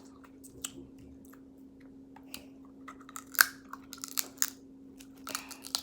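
Crab legs being cracked open and eaten close to the microphone: a run of sharp shell cracks and snaps with chewing between them, the loudest crack about three and a half seconds in. A faint steady hum runs underneath.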